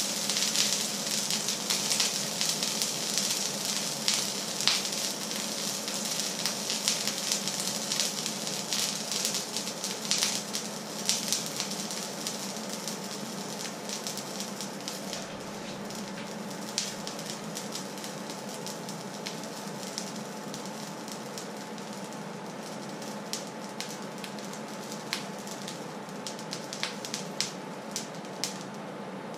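Hot pan on a hob sizzling and crackling, the crackles dense at first and thinning out as it goes on, over a steady low hum.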